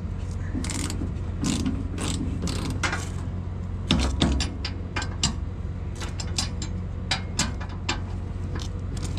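A ratchet wrench clicks in short irregular runs as the bolts on a snow pusher's cutting edge are tightened. A skid steer engine idles steadily underneath.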